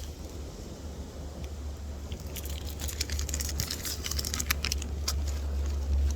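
Bead packaging being handled: a run of small crackly clicks and crinkles that grows dense from about two seconds in, over a steady low wind rumble on the microphone.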